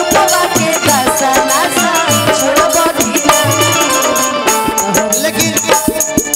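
Instrumental interlude from a live Bhojpuri folk band: a melody line over a steady drum and shaker rhythm.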